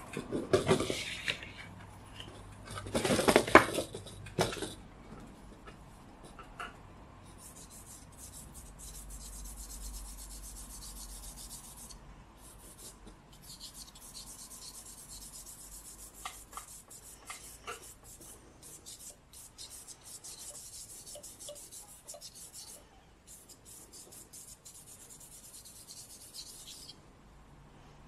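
Paper rustling and knocking as the sketchbook sheet is handled in the first few seconds, then a stick of charcoal scratching on drawing paper in quick, continuous hatching strokes, broken by a few short pauses.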